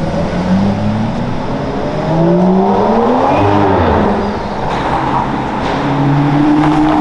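A supercar's engine accelerating hard: its pitch climbs over the first few seconds, peaks and falls away about three and a half seconds in, then settles into a steady lower note near the end.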